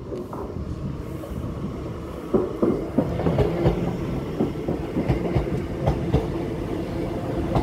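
A passenger train running past, its wheels clicking over rail joints in an uneven rhythm over a steady hum; the clicking starts about two seconds in.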